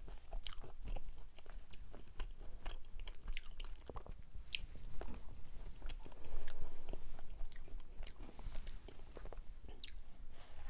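Close-miked chewing of a soft mugwort rice cake shaped like a loofah sponge, with many short mouth clicks and smacks.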